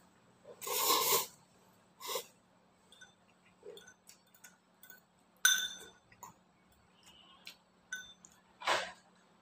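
Eating noodles from a bowl with a spoon: a slurp about a second in and another noisy one near the end, a spoon clinking against the bowl with a short ring about halfway through, and small utensil clicks in between.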